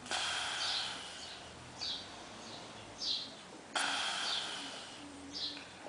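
A sleeping man breathing heavily through his open mouth, puffing each breath out through his lips in a hissing blow, once at the start and again about four seconds in. Short high chirps repeat about once a second underneath.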